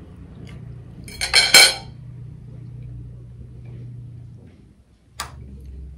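Metal fork clinking against dishes: a quick cluster of clinks about a second and a half in, then a single click near the end.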